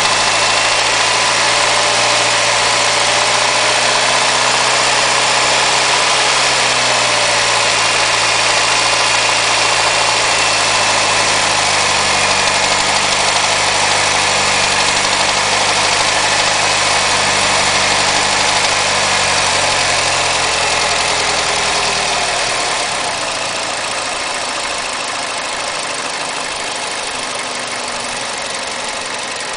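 Mazda 6 MPS's 2.3-litre turbocharged four-cylinder engine running steadily at low revs, with the knocking the owner reports at about 1500 rpm. About three-quarters of the way through, the low hum drops away and the sound gets a little quieter.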